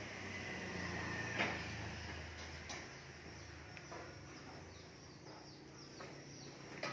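Quiet cattle-shed ambience: a steady low hum with a few scattered knocks, the last one loudest near the end, and faint short bird chirps in the middle.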